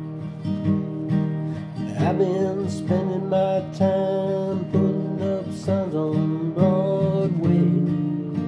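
Acoustic guitar strummed in a steady rhythm, with a voice singing a melody over it from about two seconds in.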